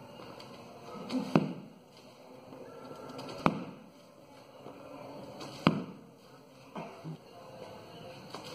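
Sanda kicks smacking into a handheld kick pad: three loud, sharp hits about two seconds apart, then a couple of lighter hits and one more sharp one near the end.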